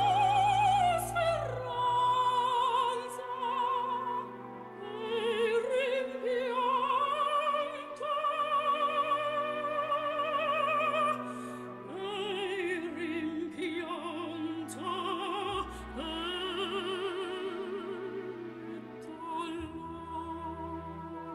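Operatic singing: a solo voice holding long notes with a wide vibrato and gliding between pitches, over a sustained classical accompaniment.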